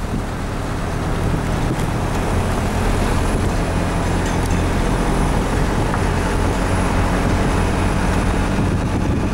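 Heavy diesel vehicle engine running steadily, a low hum over a broad rush of noise.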